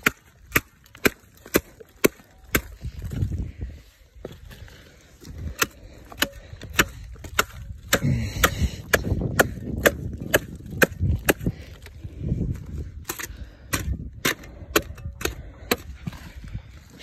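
Machete chopping at the old leaf bases (boots) on a Canary Island date palm trunk: a run of sharp strikes, roughly two a second, with a short pause about four seconds in.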